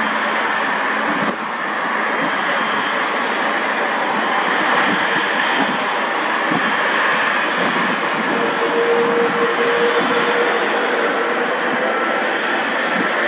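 Embraer E190 jetliner's two turbofan engines running at taxi power as the plane rolls along the taxiway: a steady, even jet rush.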